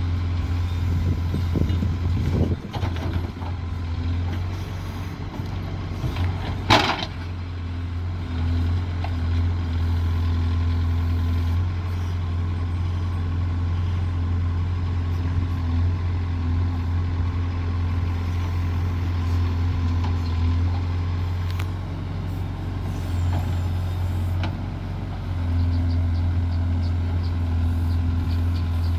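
Diesel engine of a JCB 3DX backhoe loader running steadily under load as it digs with its rear bucket. There is a brief sharp sound about seven seconds in, and the engine gets louder about 25 seconds in.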